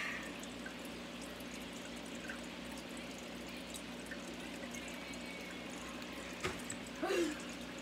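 Steady hiss with a low hum of room noise. A single knock about six and a half seconds in, then a brief vocal sound.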